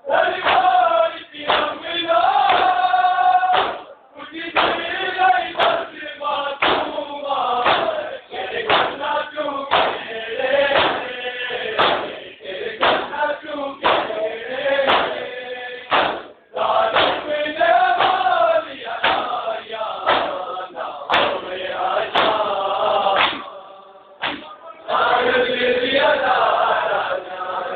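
A group of men chanting a noha, a Shia mourning lament, in unison, over a steady rhythm of hands striking bare chests (matam). The chant breaks off briefly a few times.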